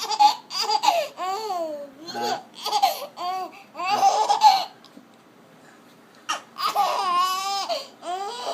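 Baby laughing in quick runs of high-pitched bursts, with a pause of about a second and a half past the middle before the laughter starts again.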